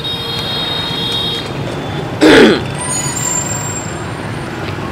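Busy street traffic, mostly motorbikes and scooters passing close by. About two seconds in comes one short, loud blast that drops in pitch.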